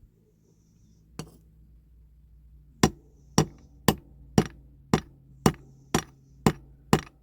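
Small hammer tapping a metal part of a diecast toy car to straighten it: a single knock, then a run of evenly spaced sharp taps about two a second.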